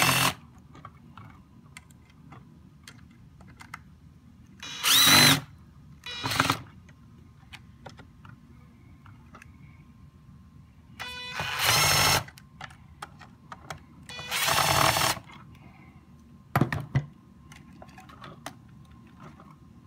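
Electric drill driving screws down, run in about five short bursts of half a second to a second each, the motor's whine rising as it spins up. Quieter handling sounds fall between the bursts.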